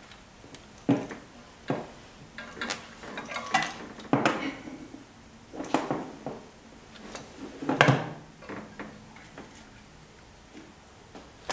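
Irregular metallic clinks, knocks and short rattles of hand tools and parts being worked in an engine bay, as a stuck part is tugged and pried at. The loudest cluster comes about eight seconds in.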